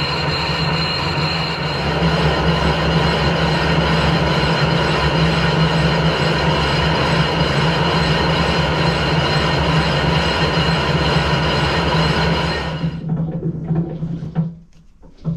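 Harrison 12-inch swing lathe turning a steam-locomotive cylinder casting while a boring bar cuts the bore: a steady mechanical running noise with a high ringing tone over the machine's hum. The cut is not yet down to solid metal all round. The noise stops about 13 seconds in, leaving quieter, uneven sounds.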